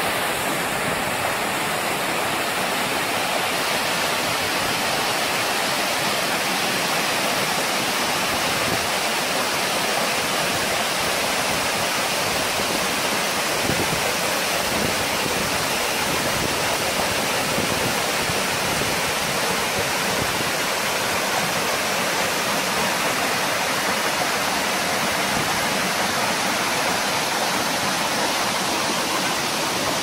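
Steady rush of a waterfall and of water pouring over the boulders of the stream below it, an even roar with no breaks.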